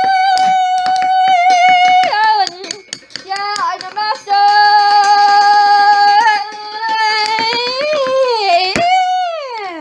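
A child's voice singing long held notes without words, moving between a few pitches and ending with a long downward slide.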